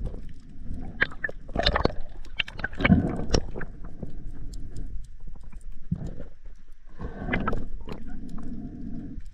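Underwater camera audio in shallow, breaking surf: a dense run of sharp clicks and knocks over low rushing water that swells twice.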